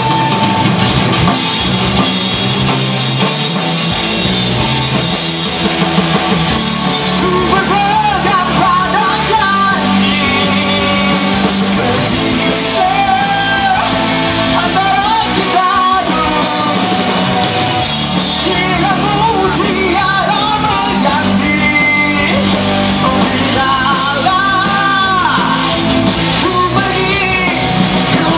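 A live rock band playing loud and steady: electric guitars, bass guitar, drum kit and keyboard, amplified through stage speakers. A man sings lead over it, coming in about seven seconds in and singing through the rest.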